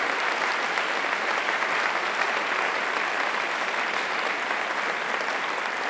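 Audience applauding steadily, beginning to die down near the end.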